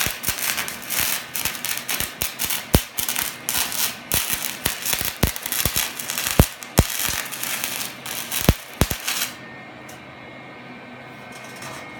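Lincoln MIG welder running flux-core wire without shielding gas: the arc crackles steadily with irregular sharp pops, then cuts off about nine seconds in as the trigger is released.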